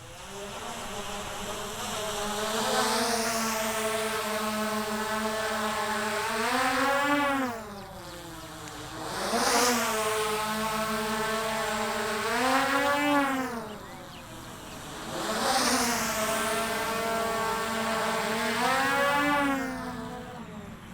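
DJI Mavic Air 2 quadcopter on stock propellers, its props giving a many-toned buzzing whine like a lot of bees. It grows louder and softer three times as the drone manoeuvres, the pitch bending up and then sliding down at the end of each swell.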